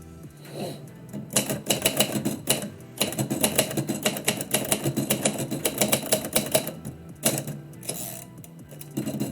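Typewriter typing in fast runs of key strikes, with a short pause about three seconds in and only a few scattered strikes in the last couple of seconds, over background music.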